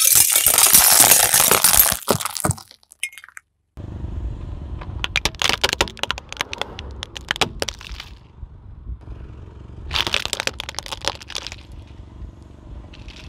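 Fluorescent glass tubes shattering under a car tyre, a dense burst of cracking and tinkling glass lasting a couple of seconds. After a short break, a hard plastic toy tank cracks and crunches under the tyre in scattered snaps, with a louder crunch about ten seconds in.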